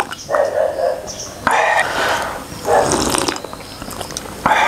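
A man slurping fish broth from a bowl held to his lips: several loud, wet slurps in a row, about four of them a second or so apart.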